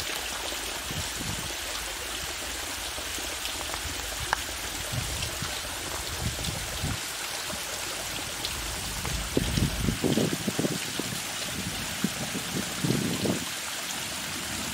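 Steady rush of monsoon waterfalls streaming and splashing down a rock face. Irregular low rumbles join in during the second half.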